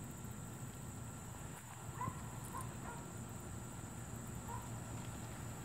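Hooves of a small flock of sheep pattering on a paved road as they are driven along, with a few short high chirps and a steady high-pitched hum behind.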